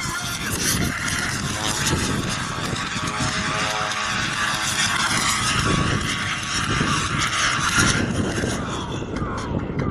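Radio-controlled model airplane's motor and propeller running in flight; a pitched whine swells and bends about three to four seconds in as it passes. Gusty wind buffets the microphone throughout.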